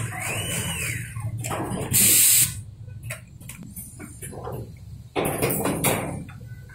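Pneumatic assembly machinery for micro motor parts at work: clicks and clatter of small metal parts over a steady low hum, with a short sharp hiss of air about two seconds in and a louder noisy stretch about five seconds in. A brief rising-then-falling whistle sounds near the start.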